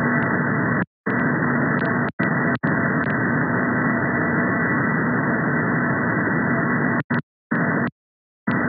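Upper-sideband receiver audio from a software-defined radio tuned to a Chinese meteor radar on 38.75 MHz: hiss cut off above about 2 kHz, with faint steady tones of the radar's 430 Hz comb in it. The audio cuts out briefly a few times with clicks, most often near the end as the receiver is retuned to 38.80 MHz.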